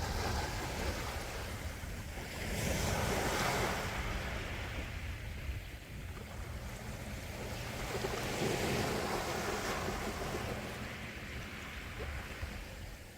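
Gentle sea waves washing on the shore, swelling twice and ebbing, about five seconds apart, over a steady low rumble.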